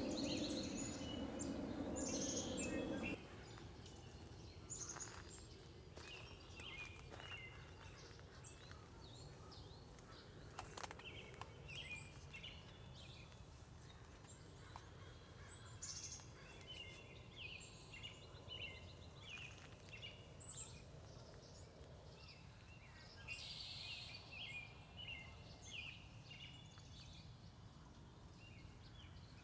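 Birds singing and chirping, many short calls, over a faint outdoor background. A louder rushing noise fills the first three seconds and cuts off suddenly.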